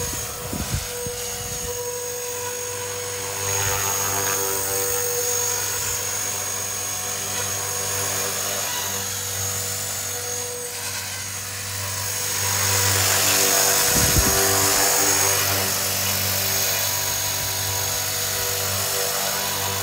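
Blade 330S electric RC helicopter in flight: steady whine of its Xnova XTS brushless motor and the rush of the spinning rotors, swelling louder for a few seconds about two-thirds of the way through. It is flown at gentle power because the brand-new motor is still being broken in.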